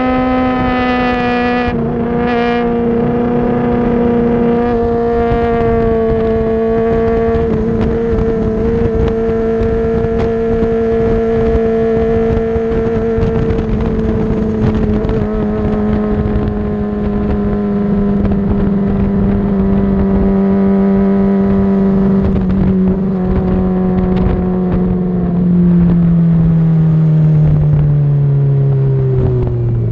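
Honda CBR600RR's inline-four engine heard from on board at speed, holding a high, steady note over wind rush on the microphone, with a brief break about two seconds in. The pitch sinks slowly and then falls steadily over the last few seconds as the bike slows.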